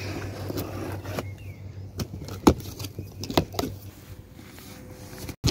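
Cardboard box of a robot mower being opened and unpacked by hand: a bunch of keys jangles, and cardboard and plastic wrapping rustle and knock, with several sharp clicks and knocks, the loudest about halfway through.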